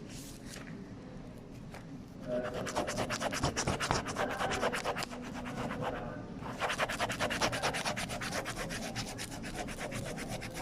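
Rapid, repeated rubbing strokes in two long runs, the first starting about two seconds in and the second about a second after the first stops.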